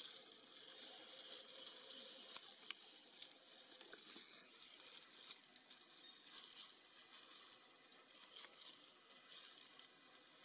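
Faint wet smacking and clicking of a long-tailed macaque chewing mango, with a few faint, brief high chirps in small groups.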